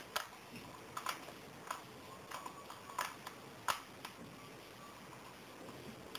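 Irregular light metal clicks, about seven over the first four seconds and fainter after, from an Allen key working the bolts that fix a brush cutter's engine to its clutch housing.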